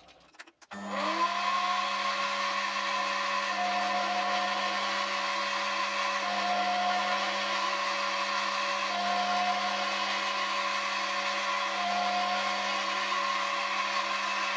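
Foreman TB1835 mini lathe spinning up about a second in, then running with a steady motor whine while facing the end of a metal bar. A higher tone comes and goes about four times.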